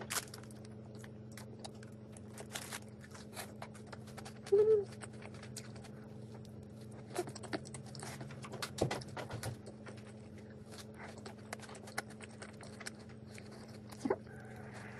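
Quiet eating sounds: scattered small clicks and taps of utensils against a dish and chewing, over a steady low hum. A short pitched sound comes about four and a half seconds in.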